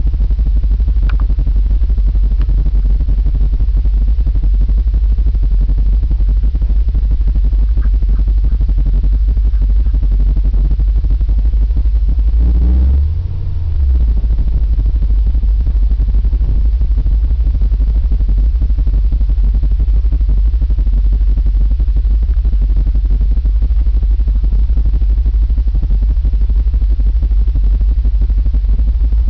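Ford F-150 engine heard from inside the cab, a loud steady low rumble, with a brief change in pitch and a short dip in level about halfway through.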